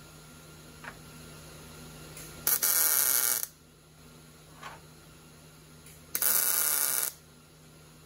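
Two short tack welds from a welder, each an even burst of about a second, some three seconds apart, over a faint steady low hum.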